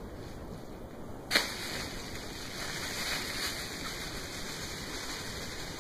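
A cardboard shipping box being opened by hand: a single sharp snap about a second and a half in, then steady rustling of cardboard flaps and bubble wrap.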